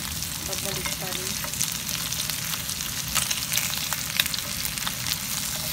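Lamb chops frying in hot oil in a pan: a steady sizzle with frequent sharp crackles and pops of spitting fat.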